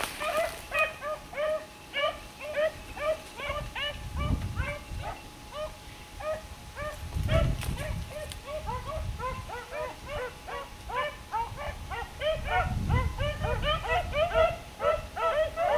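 A chorus of several canines yipping and yelping, many short arched calls overlapping without pause. A few low rumbles sound on the microphone.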